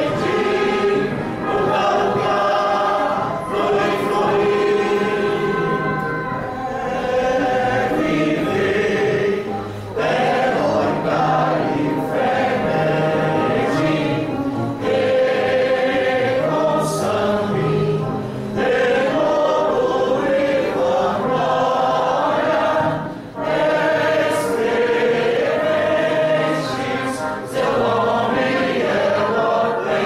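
A choir singing, with held notes in phrases a few seconds long and short breaks between them.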